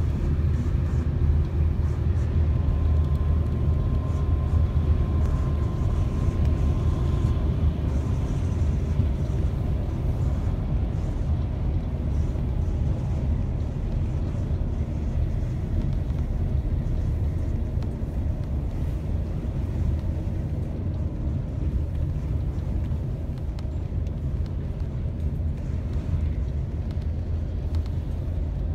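Steady low rumble of a road vehicle travelling at expressway speed, engine and tyre noise heard from inside the cabin. A faint high whine sits over it between about 3 and 7 seconds in.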